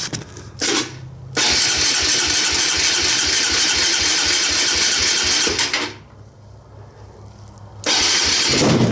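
A motorcycle's electric starter cranks the engine with a rapid even churning for about four and a half seconds without it catching. After a brief pause it cranks again near the end. The engine is slow to fire after a winter's storage, with fuel only just reaching the carburettor and the choke setting in doubt.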